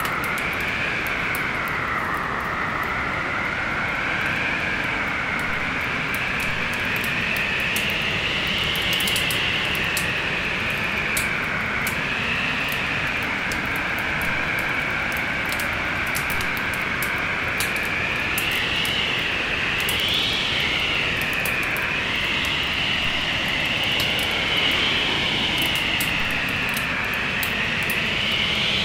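Storm wind howling, its pitch slowly rising and falling over a steady rush, with frequent sharp crackles from a fireplace fire.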